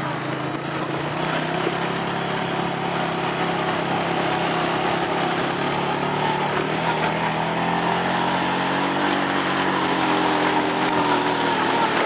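Small off-road vehicle engine running steadily while under way, its pitch rising a little in the second half as it speeds up.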